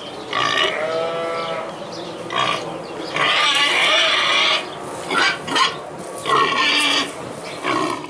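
A boar making a string of loud calls, about six in all, the longest and loudest coming about three seconds in and lasting over a second. It is a hungry pig waiting to be fed.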